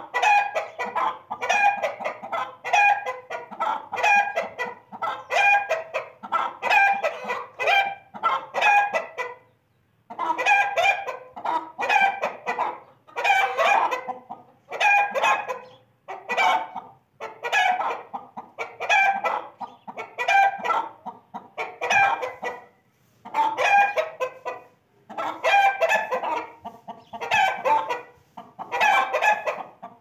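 Chickens clucking in a steady run of short calls, about one a second, with a few brief pauses.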